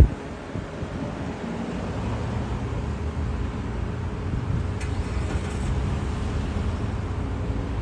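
Steady low rumble of vehicles, with a sharp knock or bump at the very start.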